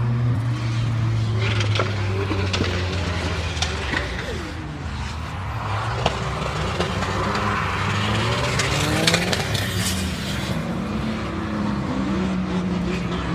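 Drift cars' engines running hard, held steady at first and then rising and falling in pitch on and off the throttle, with tyres screeching as the cars slide.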